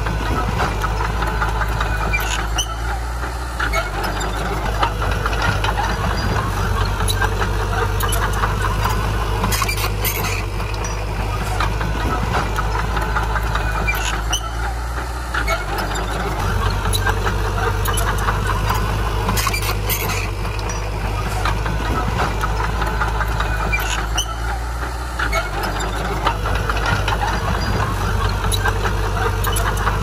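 Heavy diesel earthmoving machinery, a bulldozer and dump trucks, running steadily with a deep rumble, with short knocks every few seconds.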